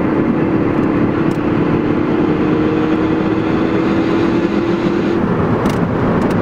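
Cabin sound of a Ford Focus ST with a muffler delete cruising at highway speed: steady road and wind noise over the turbo four's engine and exhaust drone. A droning tone rises slowly in pitch and stops about five seconds in.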